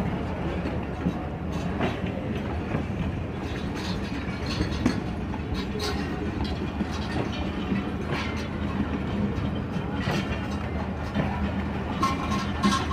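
Pakistan Railways passenger coaches rolling slowly past, their wheels clacking over rail joints every second or two. Under this runs the steady low hum of the HGMU30 diesel-electric locomotive pushing the train from the rear.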